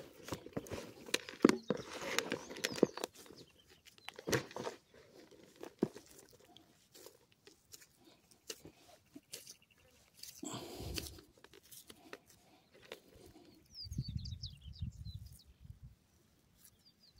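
Hands digging into and squeezing damp, crumbly groundbait in a plastic bucket and packing it around a feeder: a run of crunching, crackling handling sounds, busiest at the start, with a short low rumble near the end.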